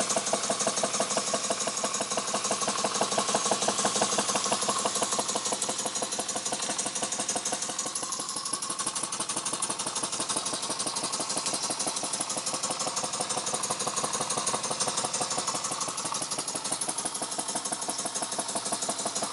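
Jensen #50 model steam engine running fast and steady, its exhaust beating in a rapid, even rhythm with a hiss of steam. It is running as it was before its timing and governor were adjusted.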